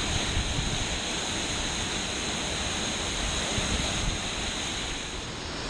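Waterfall rushing steadily, a constant roar of falling water, with wind buffeting the microphone underneath.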